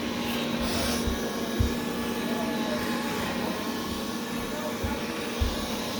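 Wyze robot vacuum running: a steady whirring hum from its suction fan with a constant low tone, and a couple of soft low bumps.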